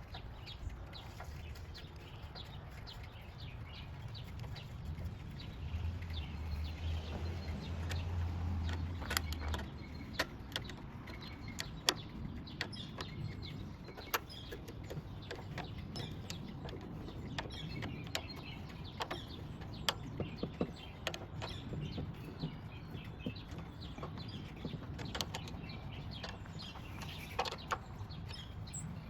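Scattered light clicks and taps of parts and tools being handled, over a faint low rumble that swells into a low hum for a few seconds about a third of the way in.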